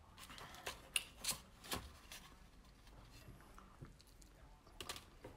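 Faint clicks and crinkles of a plastic spoon scooping food from an aluminium-foil-covered container, a few sharp ticks clustered about a second in and a couple more near the end, with soft chewing.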